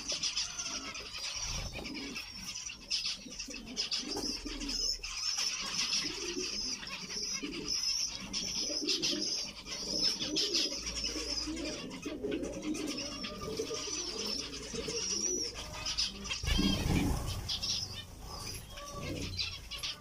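A flock of zebra finches calling continually with short, high, nasal beeping calls as they feed, with lower cooing calls underneath. A flurry of wingbeats comes about three-quarters of the way in as several birds fly off.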